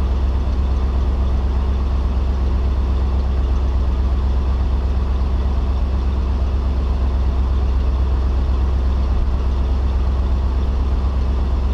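Tow truck engine idling steadily: an even, low drone.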